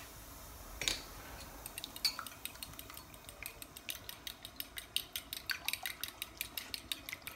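A metal fork beating eggs in a glass bowl: quick, even clinks of the fork against the glass, about six a second, starting about two seconds in. One single clink comes about a second in.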